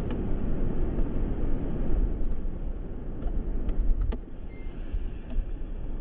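Steady low rumbling background noise, with a few faint clicks about four seconds in.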